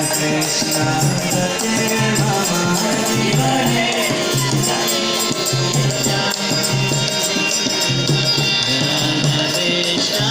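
Devotional kirtan: voices chanting together to a steady beat of jingling hand cymbals.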